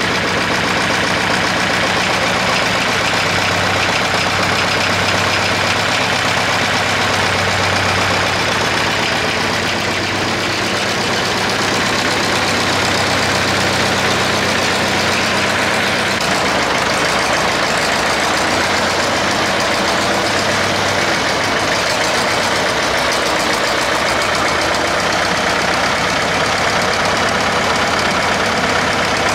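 SAME Centauro 60 tractor's diesel engine running steadily; the sound shifts about halfway through.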